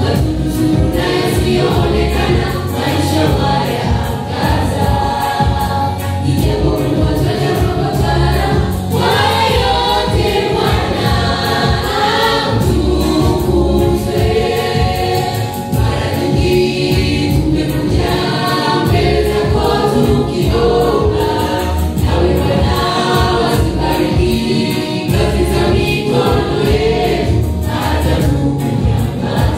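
Youth church choir singing a gospel song together, some voices amplified through handheld microphones.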